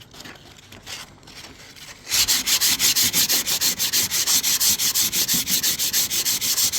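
Hand sanding hardened polyester body filler with 180-grit sandpaper: faint light strokes at first, then, about two seconds in, loud fast back-and-forth strokes at an even rhythm, several a second.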